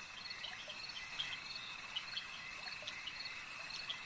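Faint night ambience of crickets: a steady high trill with short chirps repeating about every half second.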